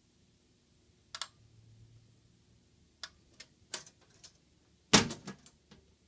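Clicks and knocks from a steel fire alarm control panel cabinet being handled, with a loud bang about five seconds in as its metal door is shut and latched, followed by a few small rattles.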